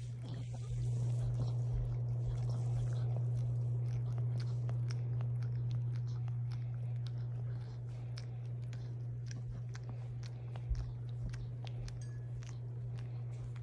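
A dog licking and nibbling another dog's head in grooming: a run of small wet licking and mouthing clicks, over a steady low hum.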